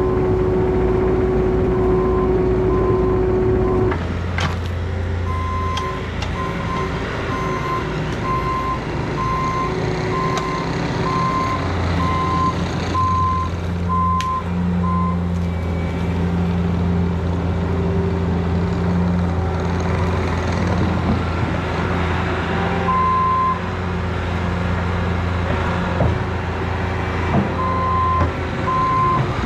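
Diesel engines of a mini excavator and a skid steer running under load, with a backup alarm beeping a little more than once a second for stretches, starting about five seconds in and again near the end. A steady whine over the engine noise stops sharply about four seconds in.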